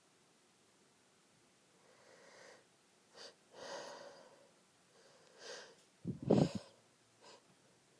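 A person takes several quick inhalations building up to a sneeze, then stifles it about six seconds in: a short muffled burst held in behind a closed mouth and nose.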